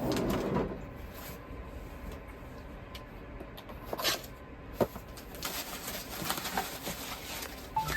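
Rummaging through a box: rustling of packaging and handling noise, with a couple of light knocks.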